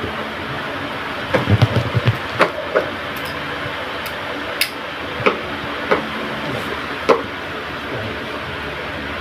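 Hard plastic clicking and knocking as hands handle and fit parts on a compact electric pressure washer's plastic body: a quick run of knocks about a second in, then single clicks every second or so. A steady hiss sits underneath.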